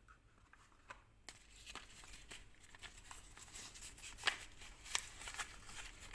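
Old paper and cardboard packaging being handled and opened by hand: rustling and crinkling with small clicks, and two sharper clicks about four and five seconds in.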